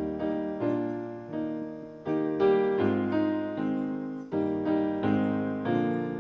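Piano playing a hymn tune in slow block chords, a new chord struck about every second and fading until the next.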